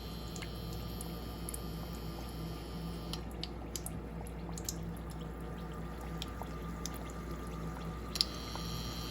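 Breaded chicken cutlets frying in hot oil: a steady sizzle with scattered small pops and one sharper crackle near the end.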